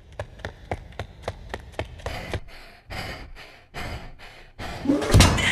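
Intro sound effects: sharp ticks about four a second, then longer hissing bursts, ending in a loud sweep.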